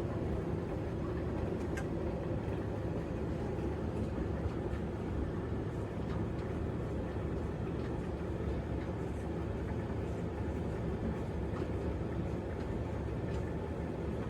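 A steady low mechanical hum and rumble with a few faint, scattered ticks.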